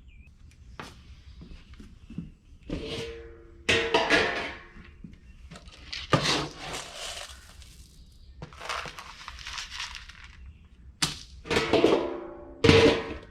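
Dry cat food being scooped out of a container and poured: a string of clunks, scrapes and squeaky rubs from the container and scoop, with a longer rattle of kibble about nine seconds in.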